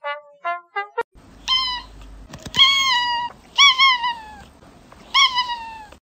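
An orange-and-white cat meowing loudly at close range: four drawn-out meows about a second apart, each falling in pitch at its end.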